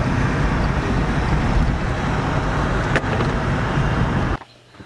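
Loud, steady cabin noise inside a moving van: a low rumble with a hiss of road noise. There is a single sharp click about three seconds in, and the noise cuts off suddenly near the end.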